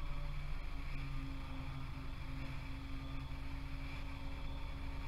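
Steady low background hum, like a small motor or machinery running, with no other distinct sounds.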